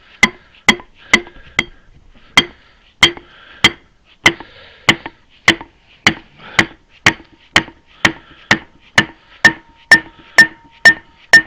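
Steady hammering on the gland of a Case 580 backhoe's outrigger hydraulic cylinder, about two blows a second, some two dozen in all, to knock the stuck gland loose; the speaker takes the gland to be probably expanded. Each blow rings out metallic, and in the last few seconds a ringing tone carries on between blows, like a bell.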